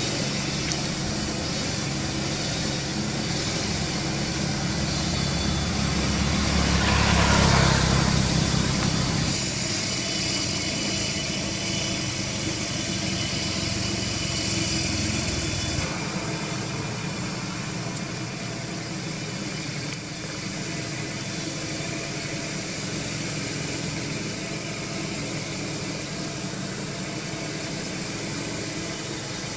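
Road traffic: a steady engine rumble with a vehicle passing about seven seconds in, swelling and fading over a couple of seconds; the low rumble drops away about halfway through, leaving a steady hiss.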